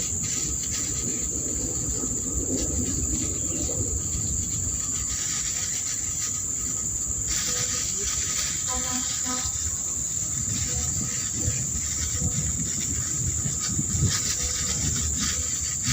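Steady, unbroken high-pitched drone of insects chirring, with a low rumble underneath.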